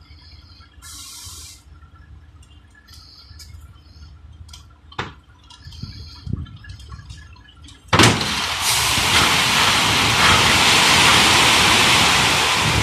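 Load of loose material sliding out of a raised tipper semi-trailer body: a low truck rumble with a few knocks, then about eight seconds in a sudden loud rushing that holds steady.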